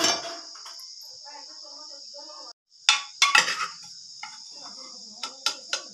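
A steady, high insect chorus, with a metal spoon clinking and scraping against an aluminium pressure cooker as it stirs cooked greens: a cluster of sharp clinks about three seconds in and a few more near the end.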